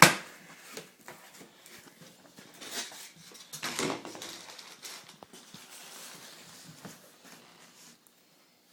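Packaging being handled: a sharp knock at the start, then brief rustles about three and four seconds in.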